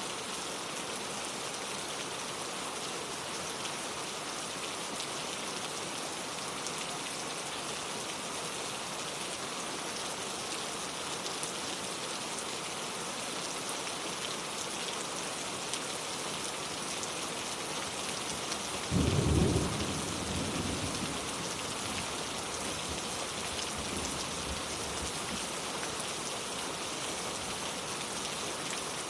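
Steady rain falling. About two-thirds of the way through, a single loud clap of thunder breaks in and rumbles away over a few seconds.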